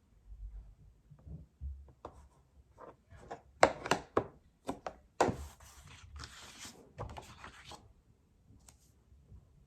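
Cardstock being handled on a work surface: a run of light taps and knocks, then two rustling scrapes of paper a little past the middle.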